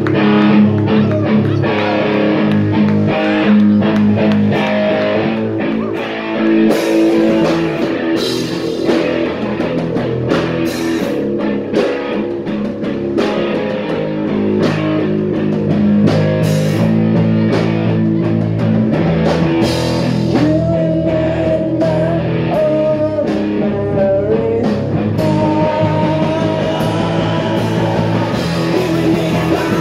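Punk rock band playing live: electric guitars, bass and drums, with frequent sharp drum and cymbal hits.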